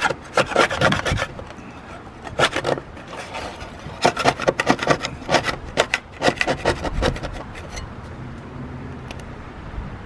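Metal scraper blade scraping around a corroded underwater light fitting on a boat's hull bottom, in quick bursts of strokes with short pauses, stopping about eight seconds in.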